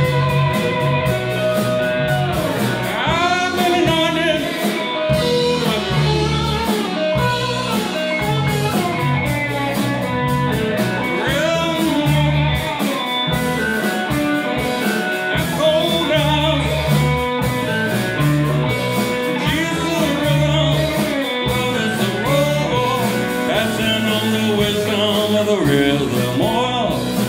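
Live blues-funk band playing: electric slide guitar leads with gliding notes over bass guitar, drums and electric keyboards.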